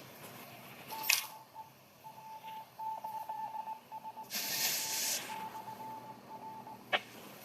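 A single steady beeping tone switching on and off in irregular short and long pulses, heard over a radio receiver. There are clicks about a second in and near the end, and a burst of static about four seconds in.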